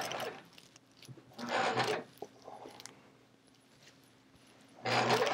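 Sewing machine with a walking foot starts stitching through a quilt near the end, running steadily with a fast, even needle rhythm. Before that there is only a brief rustle and a few faint clicks.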